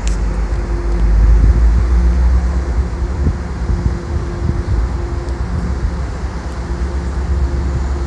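MBTA commuter rail diesel locomotive approaching slowly, its engine running with a steady low drone and a hum that comes and goes. Wind rumbles on the microphone underneath.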